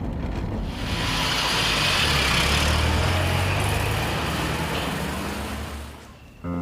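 A car's engine and tyres swelling as it drives past, then fading away.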